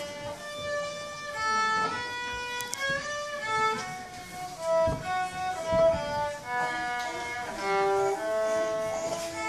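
A violin played solo, a simple fiddle tune bowed as a line of separate held notes, two or three to the second.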